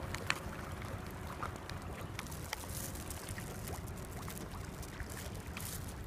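Steady low outdoor rumble of wind and moving water, with a few faint short clicks scattered through it.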